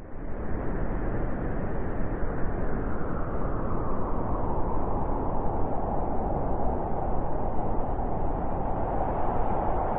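Steady winter wind, a dense even rush heaviest in the low and middle range, swelling in quickly right at the start after a moment of silence.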